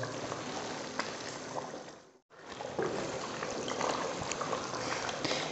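Wooden spoon stirring thick, simmering kadhi in a metal pot: liquid sloshing and swirling, with a few light taps. The sound cuts out for a moment about two seconds in.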